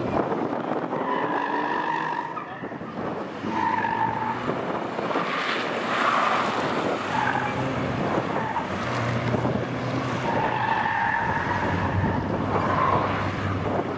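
Škoda Felicia's engine pulling hard while its tyres squeal several times in short spells as the car is flung through the tight turns of a cone slalom.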